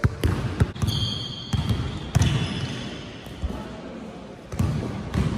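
Basketball bouncing on a hardwood gym floor in an irregular run of sharp thuds, with short high squeaks of sneakers on the court in between.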